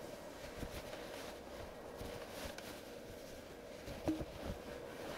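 Faint handling sounds: a few soft knocks and rustles, the clearest about four seconds in, over a steady faint hum.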